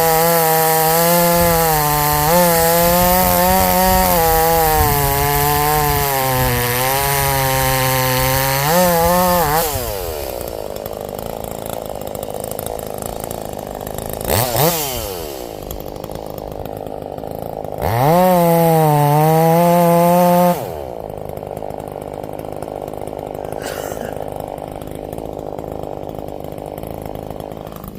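Harbor Freight Portland gas chainsaw with a muffler mod, running at full throttle for about nine seconds with its pitch wavering, then dropping to idle. After a quick throttle blip, it runs another brief full-throttle burst of about two seconds and settles back to idle.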